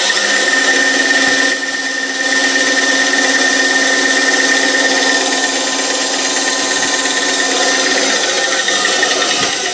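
Craftsman wood bandsaw, newly fitted with an 18 TPI metal-cutting blade and polyurethane tires, running free with no cut being made: a steady motor hum and blade whine with a high, even tone. It is a first trial run to check that the new blade stays on the wheels.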